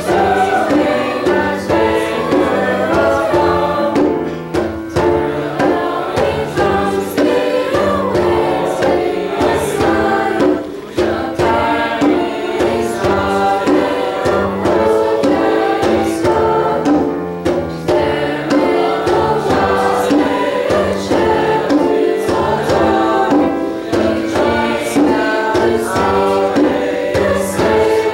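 Mixed high-school choir of teenage voices singing a song, accompanied by piano.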